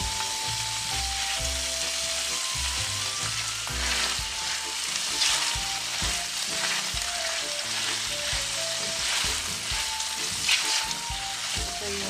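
Onion pieces sizzling as they fry in a hot skillet in beef searing drippings, stirred and scraped now and then with a silicone spatula.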